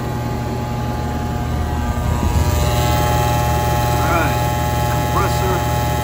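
Hayward Titanium pool heat pump running with a steady hum. Its fan blade sits too low on the motor shaft and wobbles, shaking the whole unit.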